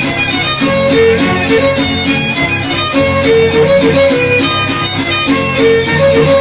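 Huasteco string music: a violin playing the melody over a strummed jarana and guitar, with no singing in this passage.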